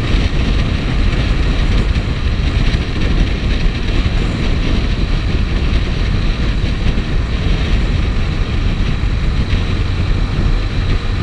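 Motorcycle riding steadily at road speed, its engine running under a constant rush of wind on the rider's camera.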